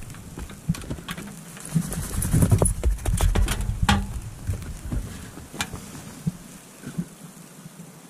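Petromax Loki 2 metal tent stove being handled and fitted together: scattered sharp metal clinks and knocks over dull thumps and rustling, busiest in the middle and thinning out near the end.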